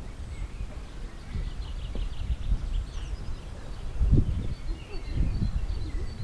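Outdoor ambience in a town square: small birds chirping in the trees over a steady low rumble, with a few brief low sounds in the second half.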